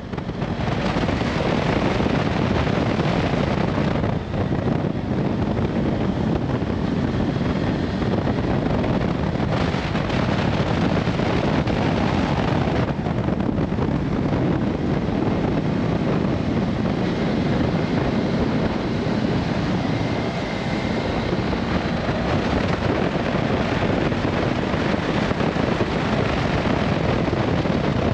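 Riding audio from a BMW F700GS motorcycle: a steady rush of wind buffeting the microphone with the bike's parallel-twin engine running underneath at cruising speed. There is a brief dip about four seconds in.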